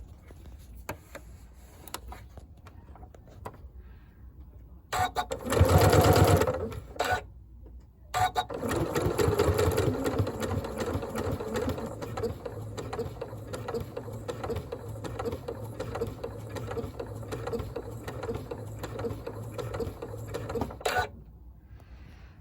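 Janome computerized sewing machine with an AcuFeed walking foot stitching, with a few light clicks first. A short loud burst comes about five seconds in, then, after a brief pause, a longer steady run of stitching that stops abruptly near the end.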